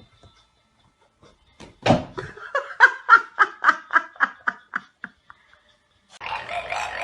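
A person laughing in a quick run of about a dozen short "ha" bursts, roughly four a second. About six seconds in, louder voices come in.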